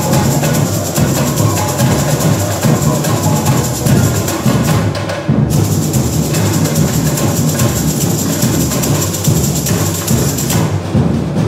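Samba school bateria playing live: surdo bass drums beating under dense, fast snare and hand-drum rhythms, with a steady rattle above.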